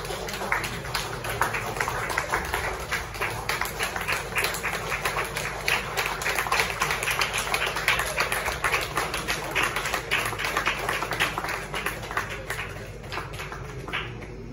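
Audience applauding, many hands clapping at once. It builds over the first second or two and dies away near the end.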